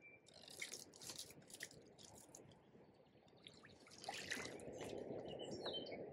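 Faint sounds of a wet landing net with a barbel in it being handled: scattered clicks and drips of water, then a steadier splashing and trickling from about four seconds in.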